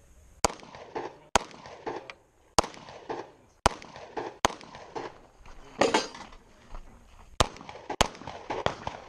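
Semi-automatic pistol shots, seven sharp reports spaced about a second apart with a longer pause before the last two, each followed by a short echo.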